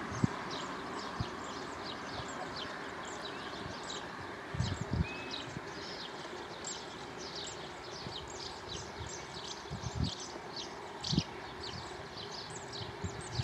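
A dense, continuous twitter of high, thin, falling bird chirps, several a second, over a steady rush of running water in an irrigation ditch. A few soft low thumps come about a third of the way in and twice more near two-thirds.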